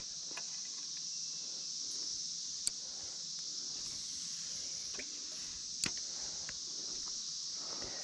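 Steady high-pitched chorus of insects, with two sharp clicks, one a little under a third of the way through and one about three-quarters through.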